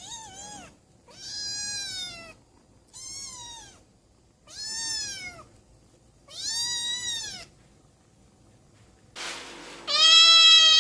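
Domestic cat meowing over and over: about five short, arched meows with gaps between them, then a longer, louder meow near the end.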